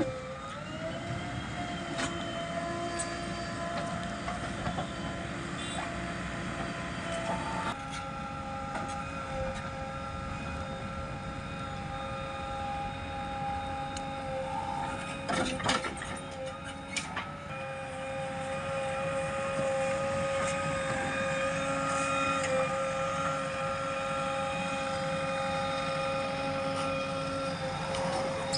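JCB 3DX backhoe loader working, its engine and hydraulics giving a steady whine that rises in pitch about a second in and changes again about eight seconds in. A few sharp knocks come about halfway through.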